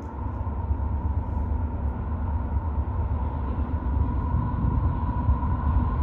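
Distant approaching diesel freight train: a low steady rumble, with a steady high tone above it that grows slightly louder near the end.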